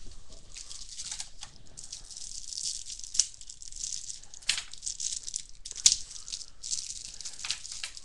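Plastic and foil trading-card pack packaging crinkling and rustling as it is handled and torn open, with a few sharp snaps, the loudest near the end.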